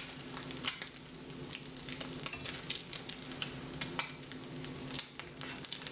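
Scrambled eggs sizzling in a frying pan while being stirred and scraped with a spatula, with frequent short scraping ticks of the utensil against the pan over a steady sizzle.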